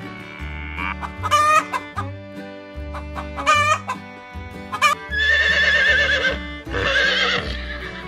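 A chicken calling over background music: three short calls, then two longer, drawn-out calls in the second half.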